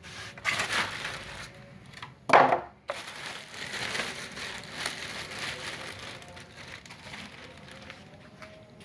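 Packaging rustling and crinkling as compressor parts are handled and unpacked, with one louder, brief crunch a little over two seconds in.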